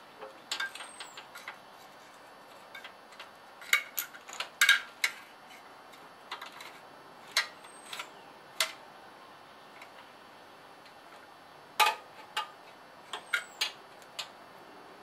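Scattered, irregular light metallic clicks and taps as a throttle cable and its wire end are worked into the carburetor linkage of a garden tractor's small engine, which is not running.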